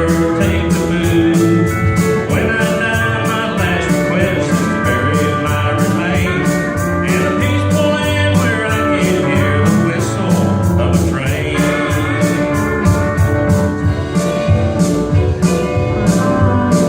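Live country music: a man singing over a band, with a steady beat of about three ticks a second.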